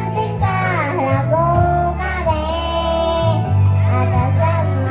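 A kindergarten choir of young children singing together over musical accompaniment with a steady bass line.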